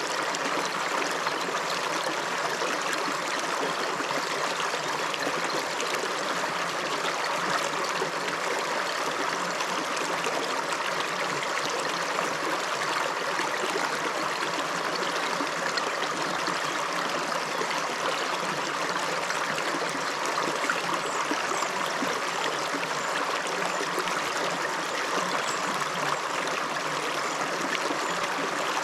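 River water flowing steadily: an even, unbroken rush of running water.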